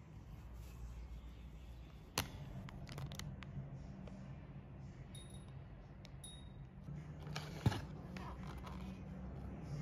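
Plastic packaging crinkling and rustling as wrapped items are handled and lifted out of a cardboard box, with a sharp click about two seconds in and another about three-quarters through, over a low steady hum.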